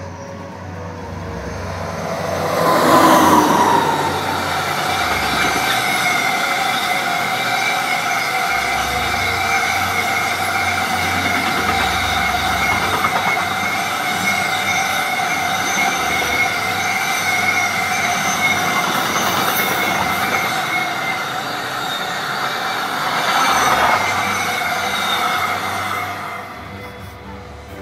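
Container freight train passing close by: loudest as the head of the train goes by about three seconds in, with a falling tone, then the wagons rolling past for about twenty seconds with a steady high-pitched squeal from the wheels, fading away near the end.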